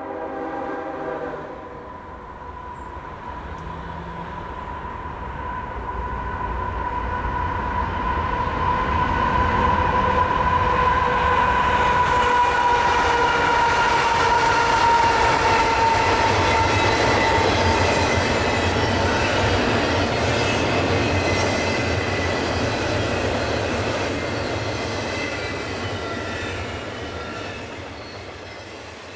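Freight train passing. There is a short horn note at the very start. Then a long, high-pitched wheel squeal that slowly falls in pitch rides over the rumble and clatter of the cars, loudest in the middle and fading toward the end.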